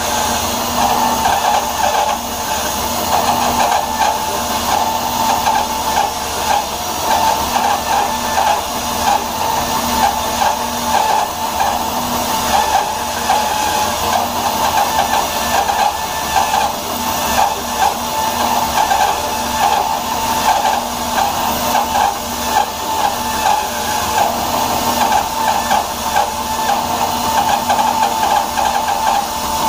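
Bandsaw with a half-inch, 4-teeth-per-inch Timber Wolf blade resawing a thick block of wood: steady motor and blade noise with the rasp of the cut. It is a slow cut, with the blade smoking in the wood.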